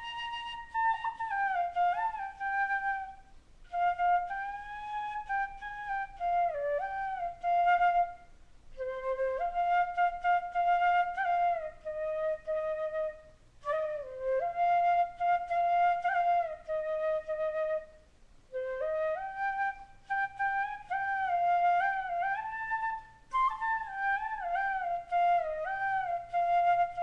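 Solo flute playing a slow, ornamented melody in phrases, with short pauses between them.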